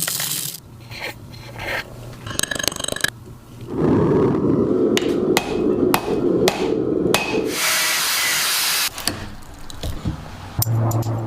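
Hand-tool work: a series of sharp hammer strikes, about two a second in the middle, mixed with scraping and rubbing, and a short stretch of steady rasping noise near the end.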